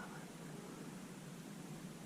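Faint steady hiss of background noise, with no distinct sound standing out.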